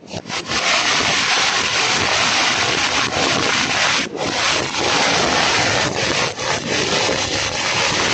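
A 10,000-wala firecracker string going off in a dense, unbroken rattle of rapid bangs. It starts abruptly and keeps crackling without a pause.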